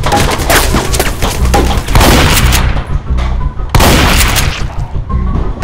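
Rapid gunfire sound effects in two bursts, a long one at first and a shorter one about a second after it stops. Background music with a steady low beat runs underneath.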